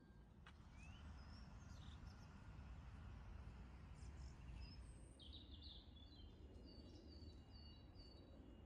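Faint songbirds calling: scattered short chirps and whistles, then a run of about five quick, similar notes near the end, over a steady low rumble.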